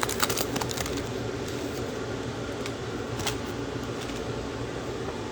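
Steady room hum with light clicks and rustles of trading cards and pack wrappers being handled: a quick cluster in the first second, then a few scattered clicks.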